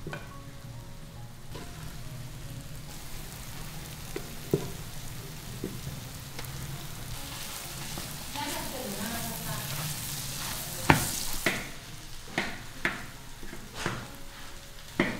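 Rice, egg and diced carrot sizzling in a large hot wok as egg fried rice is stir-fried. A spatula scrapes and knocks against the wok, the knocks coming more often and louder in the second half.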